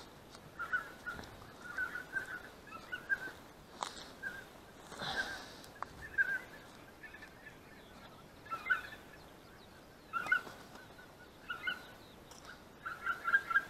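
Faint calling from a flock of white-fronted geese: short, high yelping notes that come in scattered clusters.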